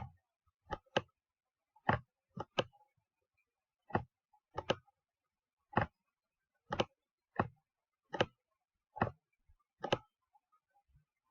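Clicks from working a computer: about fourteen short, sharp clicks, unevenly spaced and several in quick pairs.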